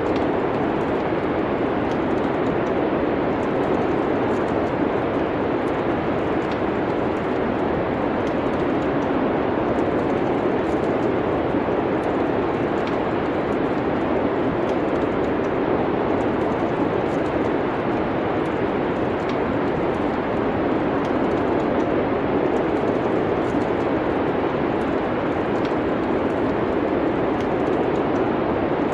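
Steady rushing wind of a winter snowstorm ambience, mixed with a crackling wood fire whose faint scattered crackles tick over the top.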